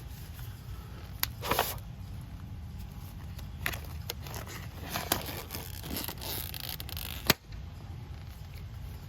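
Scattered small metal clicks and scrapes of a 7/16 line wrench working the vacuum-line fitting on a front locking hub, with one sharp click about seven seconds in, over a low steady rumble.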